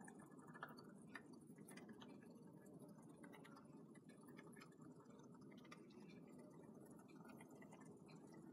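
Near silence, with scattered faint clicks from an aerosol can of shaving foam being squirted into a plastic tray.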